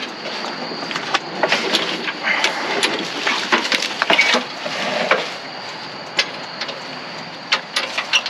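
Curbside scrap being handled: irregular knocks, rattles and clatter.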